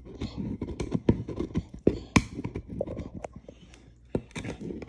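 Pit bull gnawing a large chew bone: irregular crunches and clicks of teeth on the bone, the loudest crack about two seconds in.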